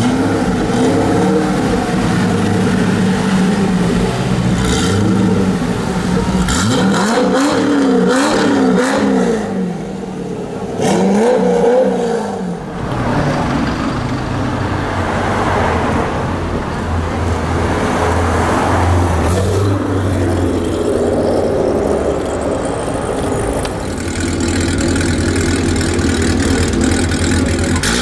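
Chevrolet Corvette V8 running loud, revved in a series of quick blips about a third of the way in, then rumbling more steadily at low revs.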